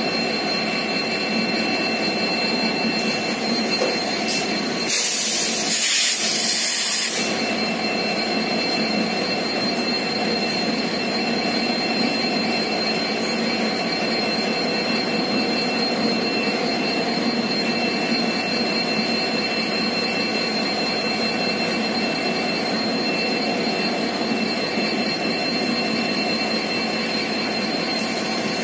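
Humsafar Express LHB passenger coaches rolling steadily past a platform as the train enters the station, with a continuous rumble and clatter of wheels and two thin steady high tones. About five seconds in, a burst of hiss lasts about two seconds.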